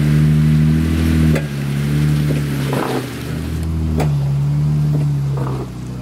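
Jeep Gladiator's engine running steadily under load while crawling up rock, its note easing off and coming back a couple of times. A couple of sharp knocks are heard over it.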